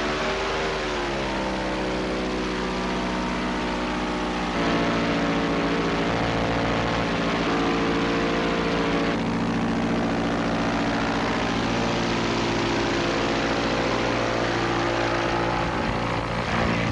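Homemade light aircraft's piston engine running with its propeller turning, the engine note dipping and rising in the first second or so, then steadier and louder from about four and a half seconds in.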